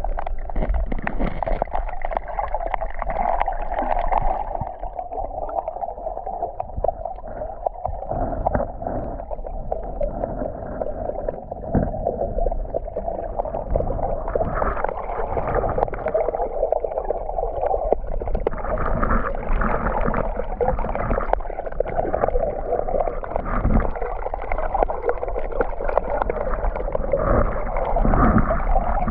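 Black Sea waves washing continuously on the shore, with irregular low rumbles of wind on the microphone.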